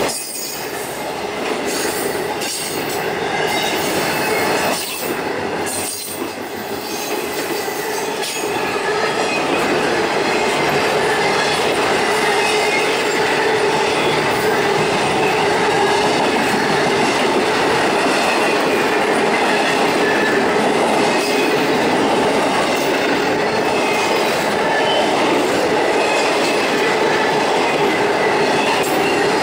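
Intermodal freight train's well cars and spine cars rolling past at speed: steady wheel-on-rail noise with a faint humming tone over it, and a few sharp clicks from the wheels in the first eight seconds.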